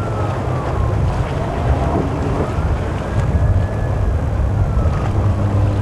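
Quad outboard engines of a Cigarette center-console boat running at speed, a steady low drone. A faint higher whine rises and falls twice.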